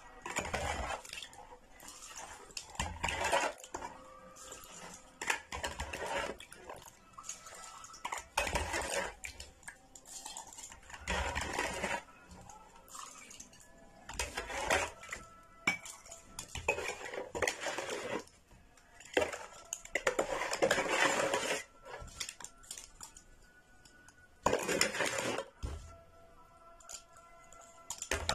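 A plastic cup knocking and scraping in a plastic basin of salt brine, with repeated pours of the brine into glass jars of olives and capers. Each pour lasts about a second, with short pauses between.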